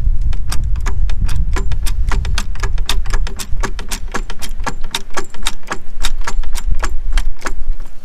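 Hydraulic floor jack being pumped to raise a car: a fast series of sharp metallic clicks and clanks from the pumping handle and pump, several a second, stopping shortly before the end.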